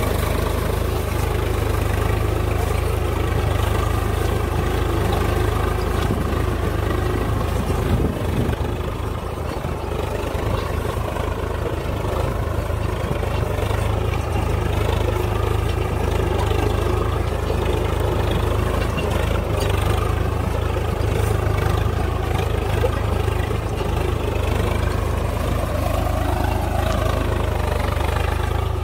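Swaraj 855 FE tractor's three-cylinder diesel engine running steadily under load as it pulls a disc plough through the soil.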